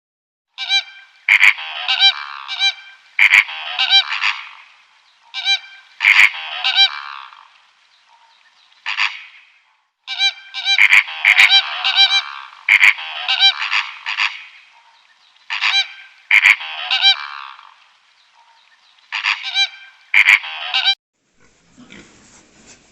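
A bird calling over and over, in runs of several quick, loud calls separated by short pauses; the calls stop about two seconds before the end.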